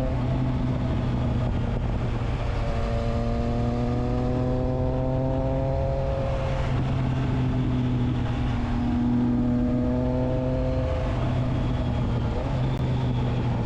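Triumph Trident 660's three-cylinder engine through a Spark exhaust with the dB killer fitted, running under steady throttle with its note rising slowly. The pitch drops suddenly about halfway through, then rises again and shifts once more near the end.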